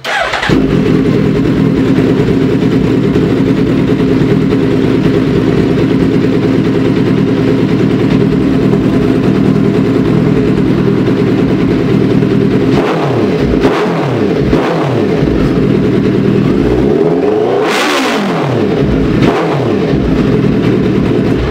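Suzuki Hayabusa inline-four motorcycle engine with an aftermarket Racefit exhaust idling steadily, then blipped with a few short throttle revs past the halfway point and one longer, higher rev near the end.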